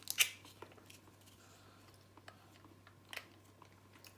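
A few faint, sharp clicks and taps: the loudest comes just after the start, another about three seconds in, with smaller ticks between.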